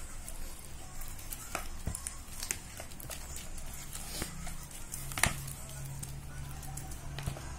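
Green plastic spoon scraping and tapping against an orange plastic bowl while mashing moist fish-scented fishing bait, with irregular soft clicks and one sharper knock about five seconds in.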